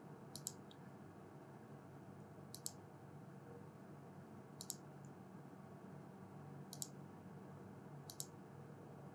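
Computer mouse clicked five times, about every two seconds, each click a quick double tick of the button pressing and releasing, over faint steady room hum.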